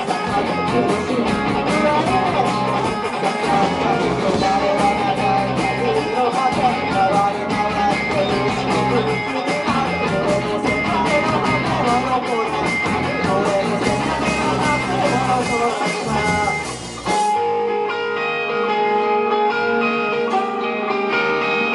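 Live rock band playing, electric guitars over drums and bass. About 17 seconds in, the drums and bass cut out suddenly, leaving the guitars ringing on their own.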